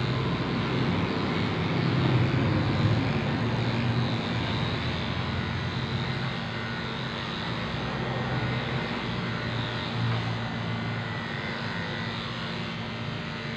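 Corded electric pet clipper running with a steady hum as it shears a small dog's fluffy coat.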